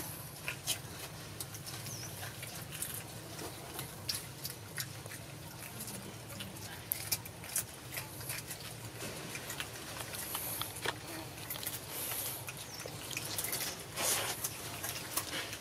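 Long-tailed macaques eating fruit close by: irregular small wet clicks and smacks of chewing, with a slightly longer rustling burst near the end, over a low steady hum.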